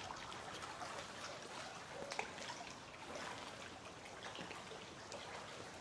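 Faint, steady trickling and lapping of shallow water, with a small click about two seconds in.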